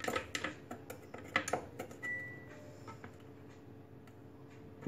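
Clicks and light knocks of a Thermomix butterfly whisk being fitted onto the blade inside the stainless steel mixing bowl, with a short high beep about two seconds in.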